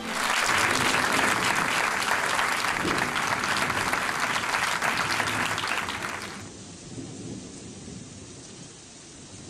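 Audience applauding, a dense patter of clapping that fades out after about six seconds and leaves only faint room noise.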